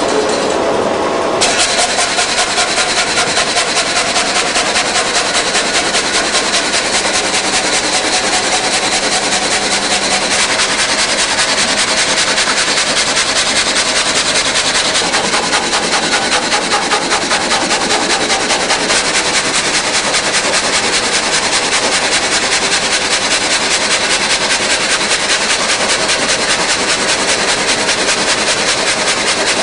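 Multi-blade rip saw machine running, a loud, even machine noise with a high hiss and a fast, regular pulsing; the hiss brightens sharply about a second and a half in.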